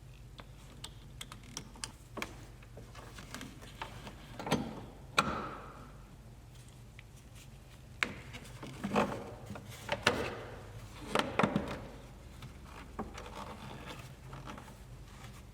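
Scattered light clicks, taps and rubbing of hands working plastic parts in a car headlight housing: a dust cover and bulb being twisted out and in, over a steady low hum.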